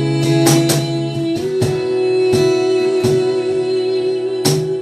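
Guitar strumming sustained chords in a slow worship song, changing chord about a second and a half in.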